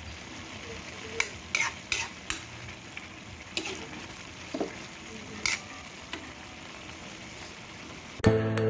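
Metal ladle stirring banana heart and glass noodles in a metal pan, knocking and scraping against the pan at irregular intervals, about once a second, over a steady low sizzle of frying. Music starts suddenly near the end, louder than the cooking.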